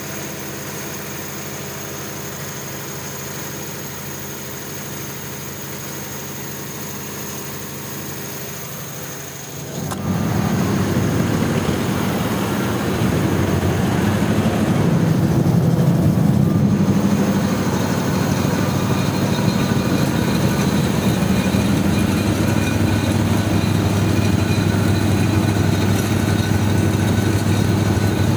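Perkins diesel engine of an FG Wilson generator set running steadily at constant governed speed. It grows suddenly louder and fuller about a third of the way in, then holds steady.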